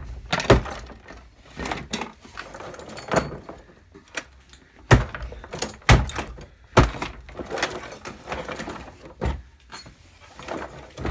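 A heavy wooden beam slammed down again and again onto the broken parts of a hand mixer on a wooden surface: about eight hard thuds at uneven intervals, with plastic and metal pieces rattling between blows.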